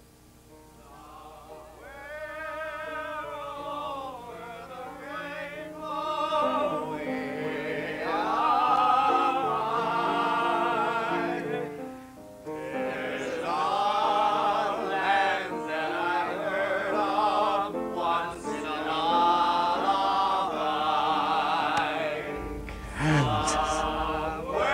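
Operatic singing with a wide, wavering vibrato on long held notes, over steadier accompaniment, starting about two seconds in.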